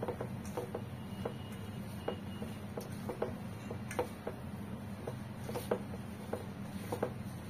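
A hand mixing soaked sago pearls with peanut powder and curd in a stainless steel bowl: irregular soft clicks and taps of fingers against the bowl, over a steady low hum.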